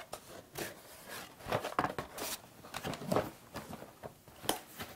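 A cardboard box being handled and opened: irregular scrapes, rustles and knocks of cardboard and paper packing.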